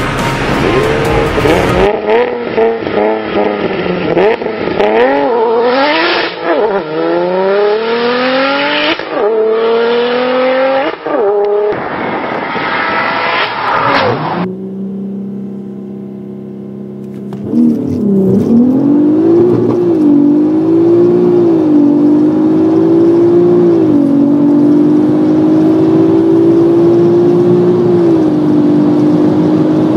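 Turbocharged VW VR6 engine heard from inside the cabin under hard acceleration through the gears. The engine note climbs, falls back at each upshift and climbs again. A short, steadier lower stretch about halfway through comes before another long pull.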